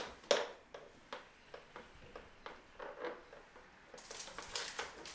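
A vinyl window trim strip being handled and pressed onto the frame: a series of irregular light taps and clicks, the loudest right at the start, then a denser rustling near the end.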